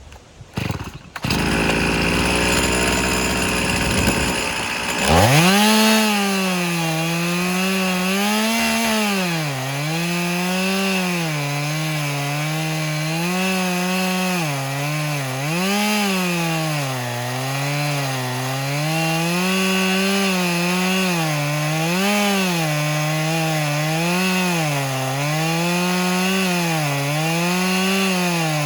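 Stihl MS362 two-stroke chainsaw on an Alaskan chainsaw mill, starting about a second in and then revving up sharply about five seconds in. It then rip-cuts a walnut log lengthwise into a slab, its engine pitch rising and sagging over and over as the bar is pushed through the wood under load.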